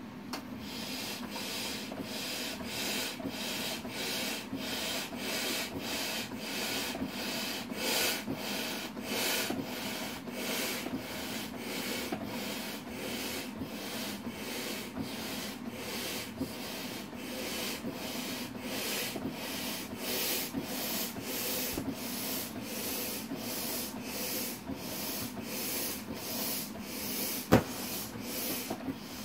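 Air pump inflating a thin-vinyl inflatable dragon toy: a steady low hum with a regular rushing pulse a few times a second. One sharp click near the end.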